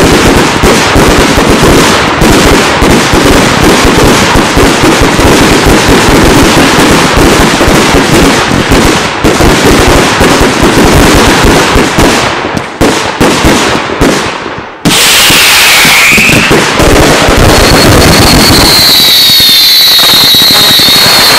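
BKS Brothers daylight fireworks battery firing a dense, rapid string of bangs that thins out after about twelve seconds. About fifteen seconds in a new loud volley starts suddenly with a falling whistle, then turns into steady shrill whistling from many shots over crackling.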